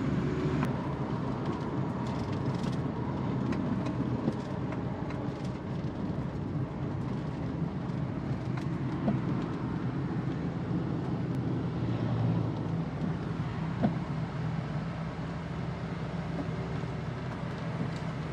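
Suzuki Every Wagon driving at a steady speed: a constant low engine and road hum, with a few light ticks and knocks.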